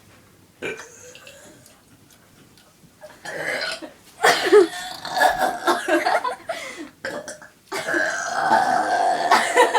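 A girl burping: long drawn-out burps, one starting about three seconds in and another held for about two seconds near the end.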